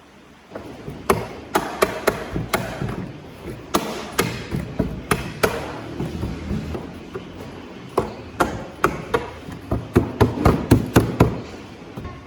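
Repeated hammer blows, irregularly spaced, with a quick run of strikes near the end.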